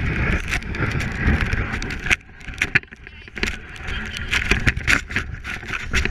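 Plastic sled sliding over snow: a steady scraping hiss with a low rumble and many sharp knocks and rattles as it bumps along, easing off for about a second near the middle.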